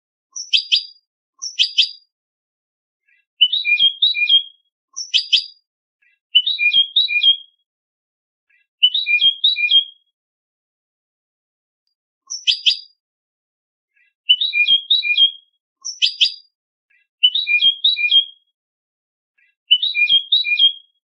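European goldfinch singing in short, high twittering phrases, about eleven in all, each under a second and separated by pauses, mixing sharp falling notes with quick repeated trills.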